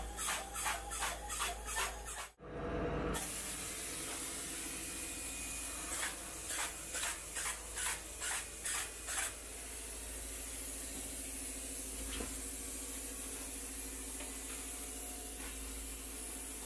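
Spray gun applying two-component polyurethane foam insulation: a steady hiss, with a rhythmic pulsing of about two to three beats a second in two stretches.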